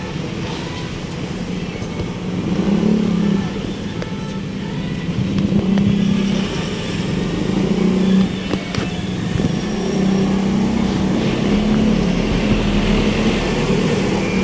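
Road traffic: motor vehicle engines running past close by, the sound swelling and easing off several times.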